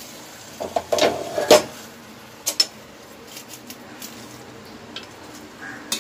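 Steel ladle knocking and scraping against a stainless steel pot as cooked biryani rice is stirred. There is a cluster of knocks in the first couple of seconds, then a few lighter clinks.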